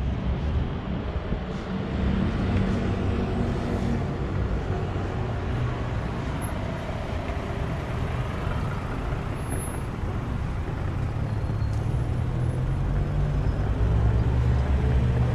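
A motor vehicle's engine running steadily, a low rumble under a rushing noise; it comes up suddenly at the start and grows a little louder near the end.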